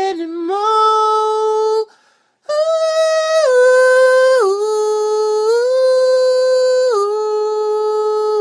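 A man singing unaccompanied in a high voice, holding long wordless notes that step up and down in pitch. A short phrase breaks off about two seconds in, and a long melismatic phrase follows.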